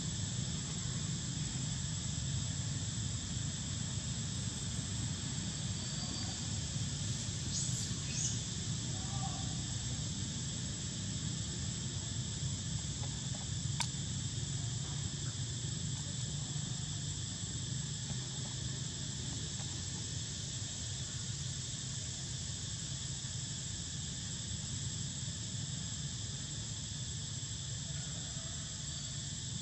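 Steady, high insect chorus, with a low steady rumble beneath and a single sharp click about halfway through.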